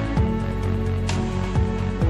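Background music: held chords over a low bass line that moves every half second or so, with a single sharp percussion hit about a second in.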